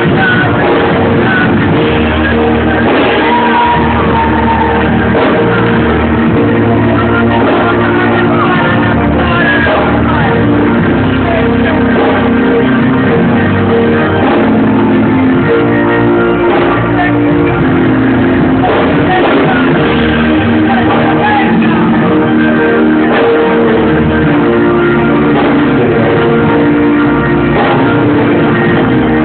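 Loud live gospel music from a church band, with shouts from the worshippers over it.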